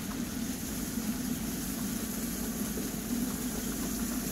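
Steady low mechanical hum with a light hiss and no change in level.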